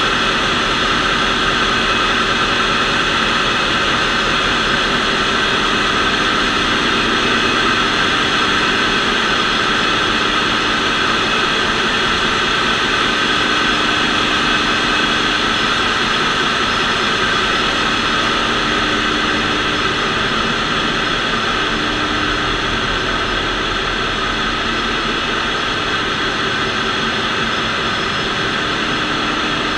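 Steady, loud din of machinery running in a ship's engine room, with several constant high whines over a broad rush of noise.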